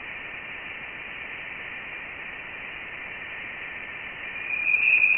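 Voyager 1 plasma wave instrument data played back as sound: a steady radio-like hiss with a few faint high steady tones, and a louder high tone swelling in about four seconds in. The tones are electron plasma waves in the gas around the spacecraft, and their high pitch is the sign that Voyager 1 had left the heliosphere for interstellar space.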